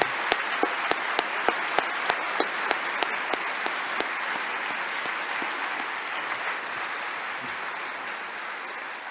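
Audience applauding, with one set of claps close to the microphone standing out about three times a second for the first few seconds. The applause then slowly dies down.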